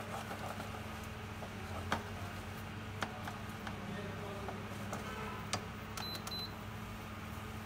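Silicone spatula stirring caramelizing sugar in a steel frying pan, with a few sharp clicks of the spatula against the pan, over a steady low hum.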